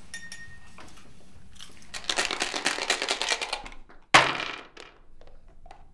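Dice rattling in a dice cup for about two seconds, then one sharp knock as the cup is slammed down on the table, followed by a few light clicks.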